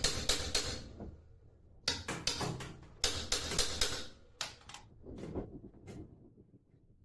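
Rapid sharp hammer blows, about five a second, in three runs with short pauses between them, the last run slowing and fading out.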